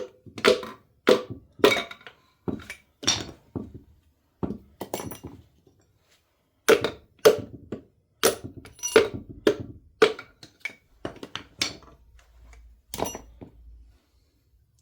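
Irregular series of sharp metallic knocks and clinks, about a dozen and a half strokes with a short pause midway: pistons and connecting rods being knocked out of a 2.2 L Ecotec engine block.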